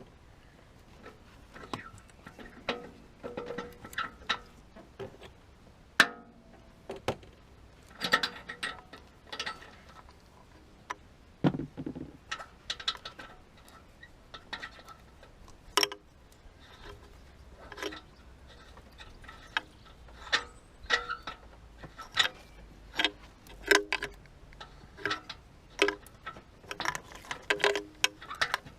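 Ratchet and oxygen-sensor socket clicking and metal tools clinking in an irregular run of sharp taps, as the freshly loosened oxygen sensor is unscrewed from the exhaust.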